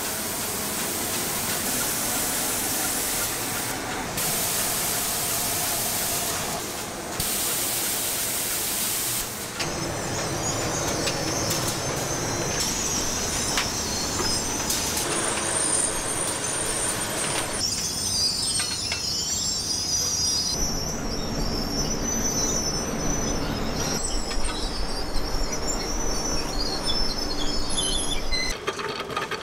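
Spray guns hissing as they spray coating onto aluminium frying pans, with two short breaks, then stopping about nine seconds in. Production-line machinery takes over, running with clattering and thin high squealing tones.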